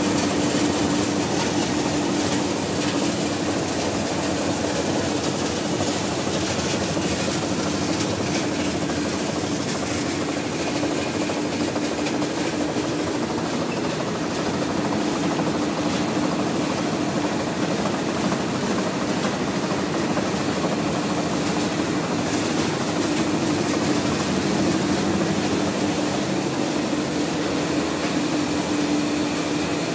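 1987 Gazelle 6 IMR web-fed printing press running steadily: an even mechanical whir with a constant low hum.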